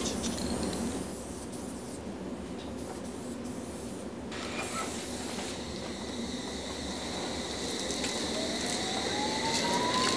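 Aerosol spray-paint can hissing in bursts with brief pauses as paint goes onto a train car's side. Near the end a rising whine comes in.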